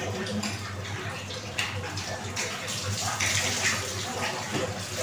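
Water splashing and pouring while kitchenware is rinsed by hand, with water scooped from a concrete tub and poured from a plastic dipper; the splashing comes in uneven bursts, loudest for about half a second a little past the middle, over a steady low hum.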